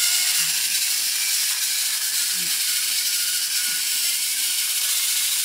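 Battery-powered toy train running on a plastic track: a steady mechanical whir and rattle from its small motor and wheels.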